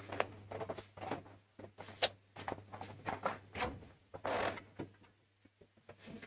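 Handling noise close to a microphone: irregular rustles of paper and clothing with light knocks and clicks of things being moved on a desk, a sharper click about two seconds in and a longer rustle about four seconds in, over a faint low hum.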